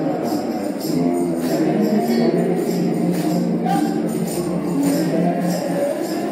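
Gospel music: a tambourine shaken on a steady beat, about two shakes a second, over sustained chords.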